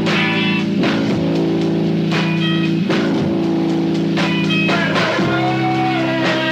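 1981 rock band recording: guitar and drum kit over held chords, which shift to a new chord about five seconds in.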